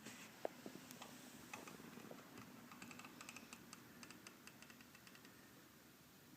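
Near silence with faint, scattered light clicks and ticks from small-scale soldering work: an iron and solder wire at a Deans connector.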